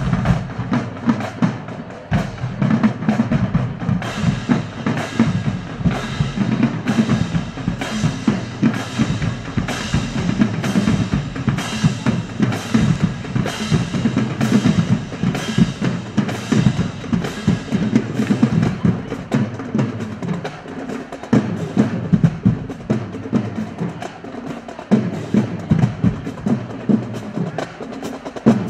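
High school marching band drumline playing a marching cadence: bass drums and snare drums beating a steady, evenly spaced rhythm.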